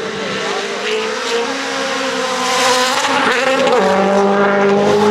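A Rally1 rally car's turbocharged four-cylinder engine at high revs, getting louder and rising in pitch as it approaches. The note breaks briefly about three and a half seconds in, then holds high and steady.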